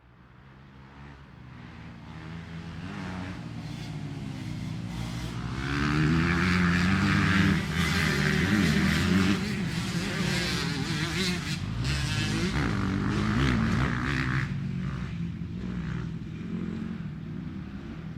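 Motorcycle engine fading in from silence and building to its loudest about six seconds in, its pitch rising and falling as it revs, then easing off a little toward the end.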